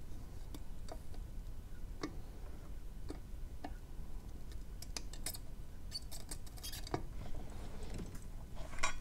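Small scattered clicks and crackles as a soldering iron and tweezers work a pin header off a circuit board through a flux-coated copper wire, with a quick run of sharp crackling ticks about five to seven seconds in and a louder click near the end, over a steady low hum.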